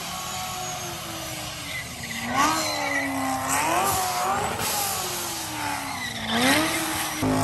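A burnout car's engine revving up and falling back about three times while its rear tyres spin and squeal against the pad.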